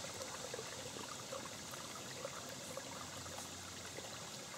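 Shallow rocky woodland stream trickling gently, a faint, steady wash of running water.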